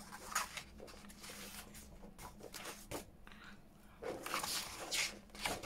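Loose paper pieces rustling and sliding as a stack of printed ephemera is sorted through by hand, with a louder rustle about four seconds in.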